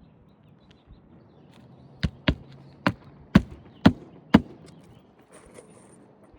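Hammer driving a roofing nail through an asphalt shingle into the roof deck: six sharp strikes about half a second apart, starting about two seconds in.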